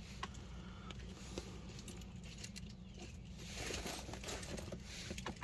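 Faint handling sounds: scattered light clicks and taps over a low steady hum.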